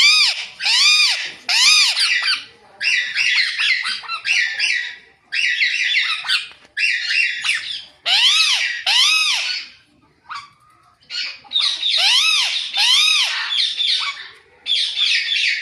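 Alexandrine and ring-necked parakeets calling: loud, harsh squawks, many rising then falling in pitch, repeated in runs of two or three with raspier chatter between and a brief lull about ten seconds in.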